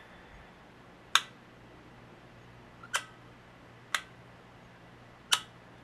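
Four sharp clicks, spaced unevenly over several seconds, from parts and tools being handled while an old air compressor's governor is taken apart.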